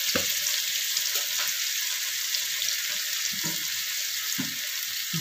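Chicken feet and boiled eggs sizzling steadily in a frying pan on a gas stove, sweet soy sauce just poured over them, with a few soft low bumps.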